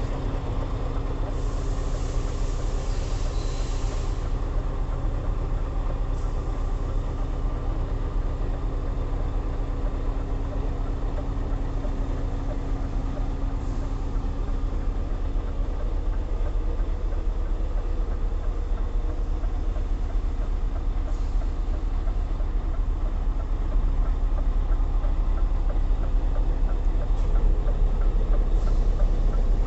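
Scania S730's 16-litre V8 diesel engine idling steadily, heard from inside the cab, a little louder in the last few seconds.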